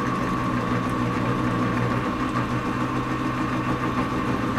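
Metal lathe running steadily with its chuck spinning: a steady hum with a fainter high whine.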